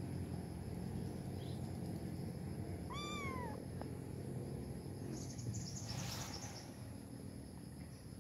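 A kitten gives one short, high-pitched meow about three seconds in, rising then falling. A faint steady background and a thin high whine run underneath, with a brief rustle near six seconds.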